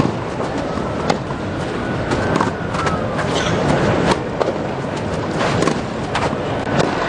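Tennis crowd between points: a steady murmur from the stands with scattered sharp claps or knocks.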